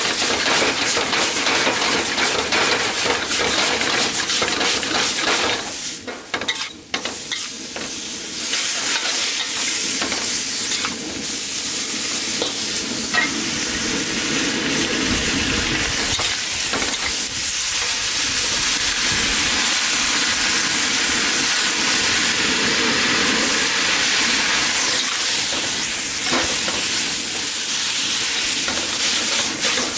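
Stir-fry vegetables (julienned carrots, bok choy, cabbage, bean sprouts) sizzling in a hot wok as they are tossed and stirred: a loud, steady hiss with many small scrapes and clatters. The sizzle dips briefly about six seconds in, then picks up again.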